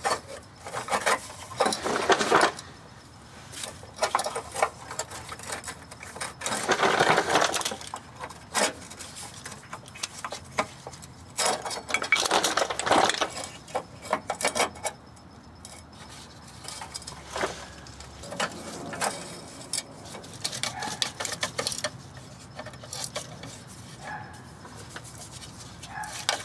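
Intermittent metal clicks, clinks and short scraping as a new canister fuel filter is worked into its metal bracket and its hose clamp is tightened with a flathead screwdriver.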